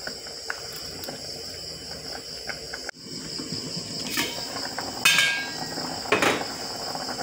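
A steady high trill of insects in the background, then a metal pot lid lifted off a steel stockpot with three clanks over the last three seconds, the middle one the loudest and ringing.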